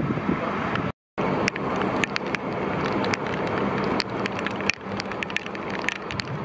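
Fire engine running at idle, a steady low hum, with scattered sharp clicks and clinks over it. The sound drops out for a moment about a second in.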